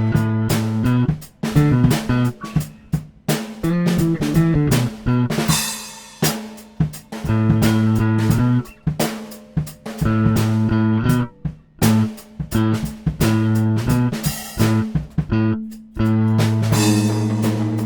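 Instrumental progressive rock played on an electric guitar (a Harley Benton PRS copy recorded direct through a Tech 21 SansAmp GT2), a Fender Jazz Bass through a SansAmp bass preamp, and a drum kit. The band plays stop-start figures with several sudden short breaks.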